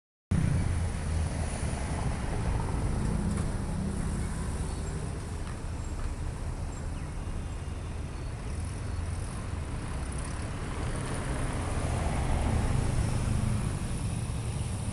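Road traffic: a steady low rumble of passing vehicles, with one vehicle swelling louder and fading about two seconds in and another late on.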